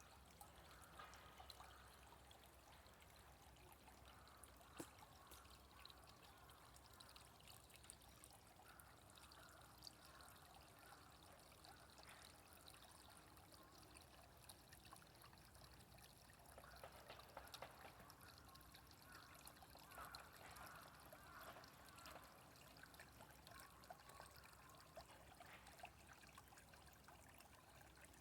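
Small stream trickling and babbling, faint and steady, with scattered small clicks and a sharper tick about five seconds in.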